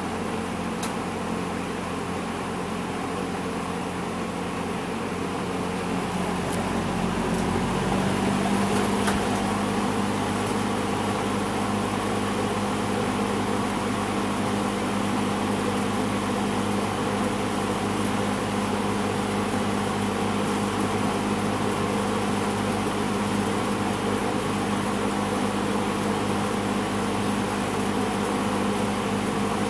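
1972 Lakewood S-23 20-inch box fan running, a steady motor hum over the rush of air. About eight seconds in, the hum shifts to a new pitch and the fan runs a little louder.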